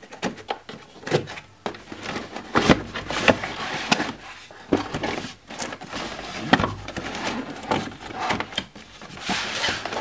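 Cardboard packaging being handled while a toy washing machine is taken out of its box: irregular scraping and rustling with many small knocks and clicks.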